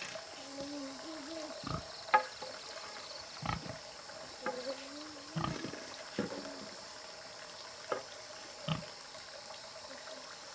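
Scattered light knocks and taps of bamboo sticks being handled against a slatted bamboo wall, one sharper knock about two seconds in. A couple of short wavering animal calls come in between.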